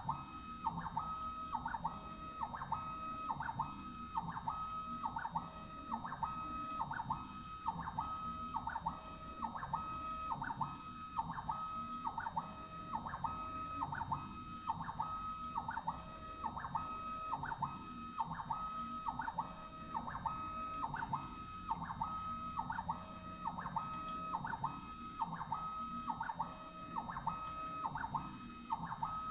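Stepper motors of a ballscrew-converted Warco WM18 CNC mill driving the axes in short repeated moves while milling out a square pocket: a whining tone that stops and changes pitch about one and a half times a second as the axes reverse.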